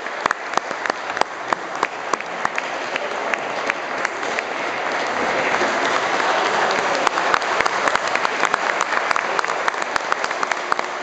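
Audience applauding, the clapping growing louder about halfway through.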